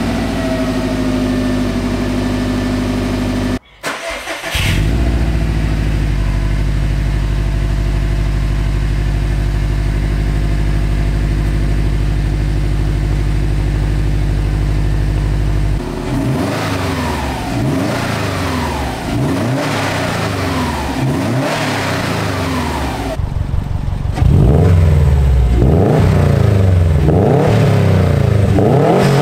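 Subaru WRX STI's turbocharged 2.5-litre flat-four boxer engine heard at the tailpipes: first idling on the stock exhaust, then, after a cut, idling steadily on an SPT cat-back exhaust. From about halfway on it is revved in a series of quick blips, the pitch rising and falling with each, and the revs go on near the end.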